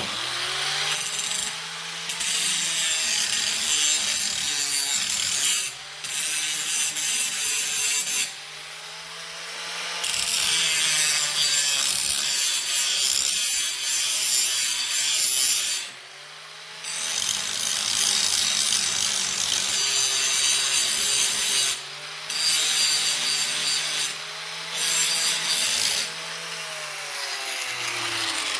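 Electric angle grinder sharpening the edge of a steel lawn mower blade held in a vise: a steady motor whine with harsh grinding noise in repeated passes, the noise lifting off briefly between passes and the motor pitch sagging under load. The grinder stops and restarts about halfway through and winds down at the very end.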